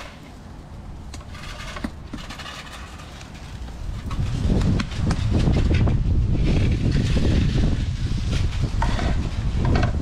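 Wind buffeting the microphone: an uneven low rumble that comes up about four seconds in and stays loud.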